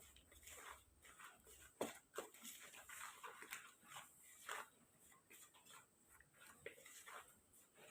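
Faint, irregular scraping and tapping of a spoon mixing a crumbly besan flour, sugar and ghee mixture in a bowl, with one sharper knock about two seconds in.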